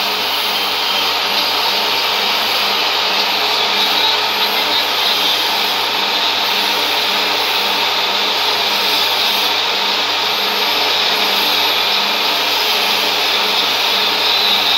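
Large stadium crowd making a continuous, steady din of cheering and shouting, with a faint steady hum underneath.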